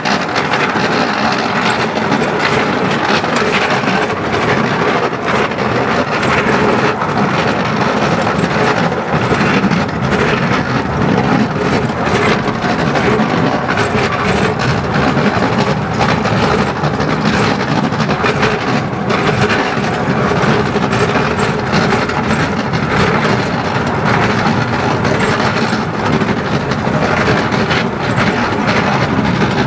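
10¼-inch gauge steam train running steadily along the line, heard from the carriage right behind the locomotive: a continuous rumble and clatter of wheels on the rails.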